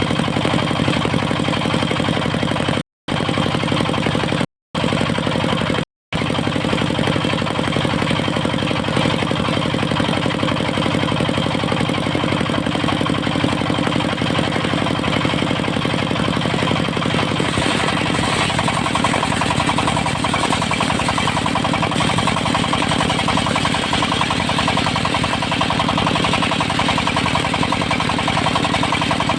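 Diesel engine of a portable circular sawmill running steadily at a constant pitch. About seventeen seconds in, a harsher high hiss joins the engine and stays. The sound cuts out briefly three times in the first six seconds.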